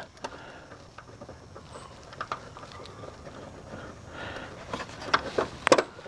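Faint scattered metallic clicks and taps of a hinge bolt and a new replacement door hinge being handled while the bolt is worked by hand into its thread, with a few sharper clicks near the end.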